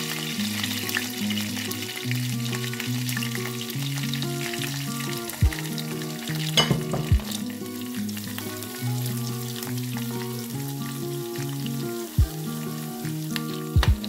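Tempering oil with mustard seeds, sesame seeds, curry leaves and green chillies sizzling and crackling in a small stainless steel saucepan as the pan is swirled, with a few sharp clicks. Background music with steady low notes plays under it.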